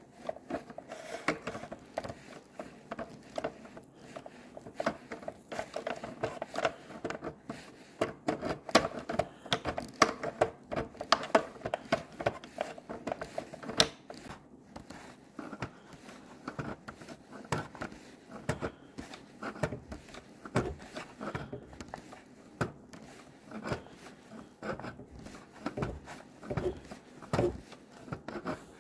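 Pliers gripping and working the plastic pressure relief valve inside an opened SodaStream: an irregular run of clicks, scrapes and knocks of metal jaws on plastic parts.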